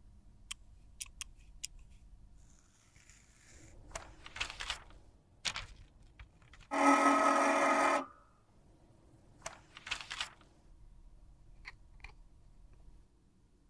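Small handling sounds of cosmetic repair work: a few sharp light clicks, then soft rubbing and scraping of small objects on a tabletop. About seven seconds in, a loud steady buzz lasts about a second and stops abruptly. It is the loudest sound here and is followed by more soft rubbing and a few light taps.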